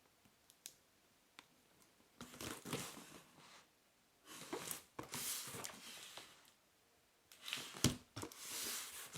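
A cardboard product box being handled and turned over on a tabletop: three bouts of rustling and scraping, with a sharp knock about eight seconds in as it is set down or bumped.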